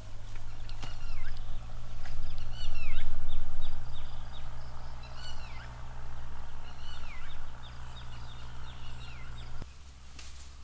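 Birds calling: repeated swooping whistled notes and quick runs of short high chips. Beneath them is a steady low rumble that swells about three seconds in and drops away suddenly near the end.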